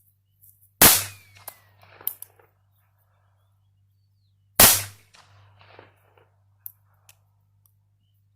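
.22 LR pocket pistol fired twice, the shots about four seconds apart, each followed by a few small metallic clicks.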